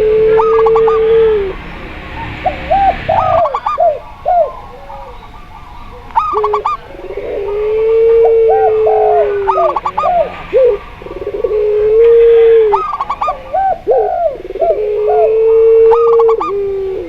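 Several doves cooing together: zebra dove, spotted dove and puter pelung. Long, drawn-out low coos, each held for about a second and slightly falling at the end, alternate with quick runs of short, higher coo notes.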